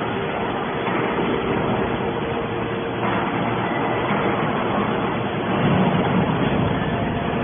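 Hydraulic scrap-metal baler running: a steady machine noise with a constant hum, growing slightly louder about six seconds in.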